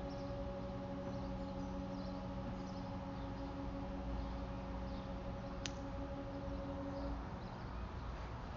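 A fire company's 1940s Clark Cooper air horns, retired ship, train and fog horns, sounding one steady chord-like blast to signal a fire call. The blast cuts off about seven seconds in.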